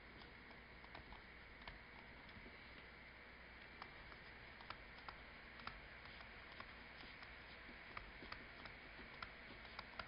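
Near silence with faint, irregular light ticks of a stylus tapping on a tablet screen while writing by hand.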